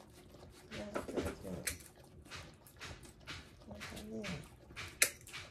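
Puppy licking food from a dish, a run of short wet smacking sounds, with a sharp click of the dog nail clippers about five seconds in, the loudest sound. A couple of short, soft vocal sounds come in around one second and again around four seconds.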